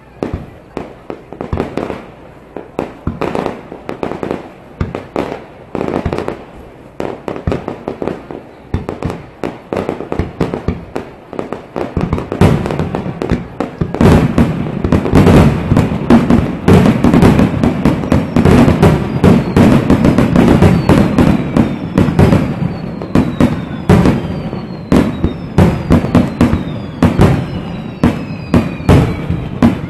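Aerial fireworks going off in a rapid series of sharp bangs, getting denser and louder about halfway through, with several high falling whistles in the later part.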